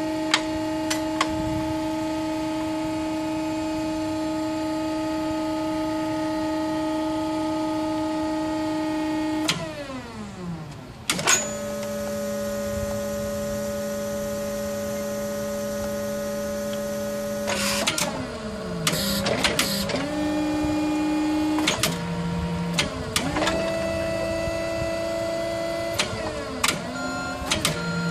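Forklift hydraulic pump whining steadily while the Cascade paper roll clamp rotates. About ten seconds in the whine glides down and dies away, then starts again at a lower pitch. In the second half the pitch shifts up and down several times, with short clicks, as the clamp functions are worked.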